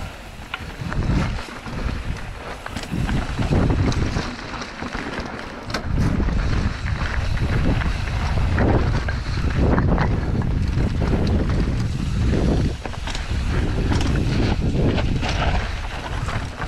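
Wind buffeting an action camera's microphone while riding a mountain bike, a loud, uneven low rumble that grows louder and steadier about six seconds in. Tyres crunch and tick over stones on the trail throughout.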